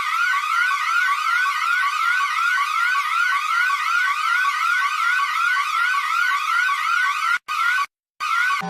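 Electronic siren in a fast yelp, its pitch sweeping up over and over at about three sweeps a second. It cuts out briefly twice near the end.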